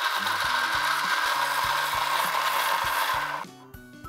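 Electric mixer grinder (mixie) running at full speed, grinding ripe jackfruit into a fine paste. It runs steadily, then switches off about three and a half seconds in.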